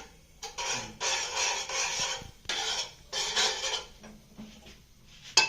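A metal spoon scraping round a pot in long rasping strokes as milk in the payasam is stirred while it thickens, followed near the end by a couple of sharp metallic clinks against the pot.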